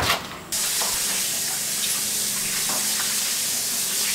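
A single sharp knock, like a knife striking a wooden cutting board, then a steady hiss that starts abruptly about half a second in.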